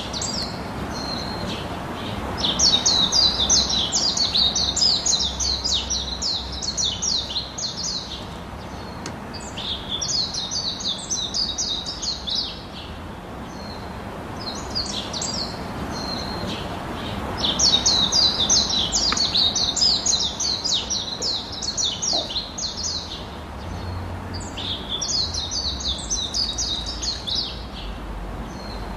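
A songbird singing in repeated phrases of rapid, high chirps, each lasting a few seconds with short pauses between. Faint steady background noise runs underneath.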